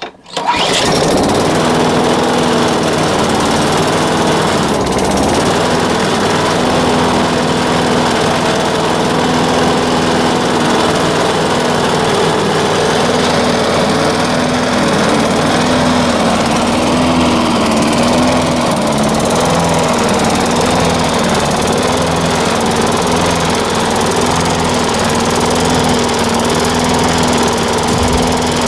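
Craftsman lawnmower's 6.75 HP Tecumseh single-cylinder engine catching on a cold start at about −7 °C, then running steadily at speed with its pitch wavering slightly.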